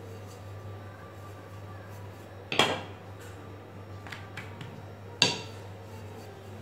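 Wooden rolling pin knocking on a granite countertop while a paratha is rolled out: two sharp knocks about two and a half seconds apart, with a few lighter taps between, over a low steady hum.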